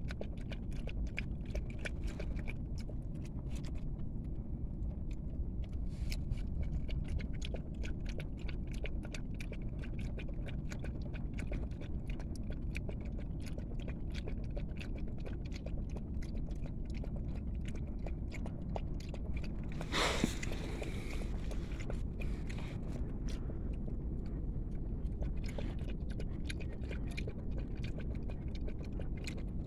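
A puppy eating from a cut-down plastic bottle, making a steady run of small wet licking and chewing clicks over a low rumble. One louder scrape lasting about a second comes about twenty seconds in.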